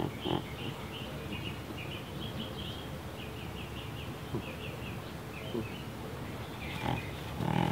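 A cat snorting and snoring through its nose like a pig while awake, the sign of her breathing problems, with louder snorts near the start and near the end. Short high chirps, like birds, go on in the background.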